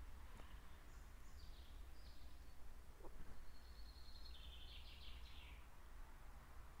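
Faint birdsong over a low background rumble: a few short high chirps, then a longer run of quick twittering notes from about four seconds in.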